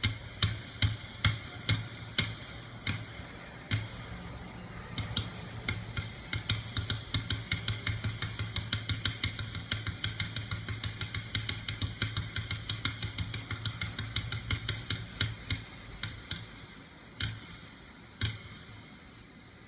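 Two basketballs dribbled hard on an indoor court floor: a rapid, even run of bounces that quickens in the middle, then thins to a couple of single bounces near the end.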